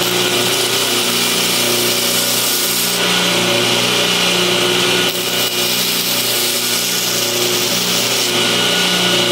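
Belt grinder running with a steady motor hum while a pocket-knife blade is ground flat against the belt, the grinding hiss growing and easing every few seconds as the pressure on the blade changes.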